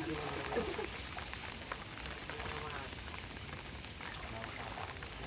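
Water splashing and crackling as a seine net is hauled in at a pond's edge: a steady hiss full of small ticks, with men's voices briefly at the start.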